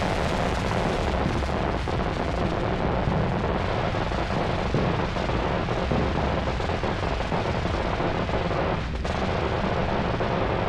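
Ground fountain firework spraying sparks with a steady hiss and crackle. Many fireworks bang and pop around it.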